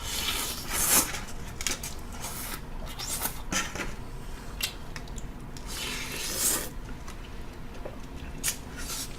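Close-miked ramen eating: slurping and mouth sounds with clicks of utensils against the bowl. There are two longer hissy stretches, one in the first second and one around six seconds in.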